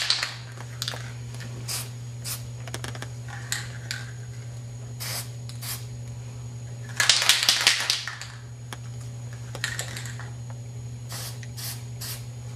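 Aerosol spray-paint can sprayed in many short spurts, each a brief hiss, with one longer burst of about a second near the middle. A steady low hum runs underneath.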